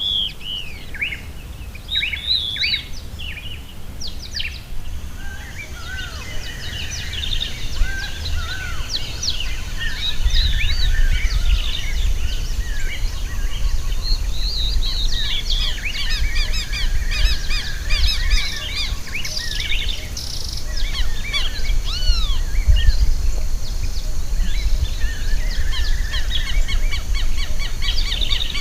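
Chorus of many wild birds singing and calling at once, overlapping chirps, trills and whistles, growing busier after about ten seconds. A steady high hiss joins about five seconds in, over a low rumble of wind on the microphone.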